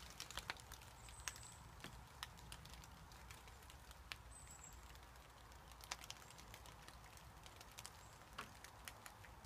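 Near silence with a faint low hum, broken by scattered sharp ticks and light crackles, most of them in the first two seconds and a few more later. Two faint short high chirps come about a second and four seconds in.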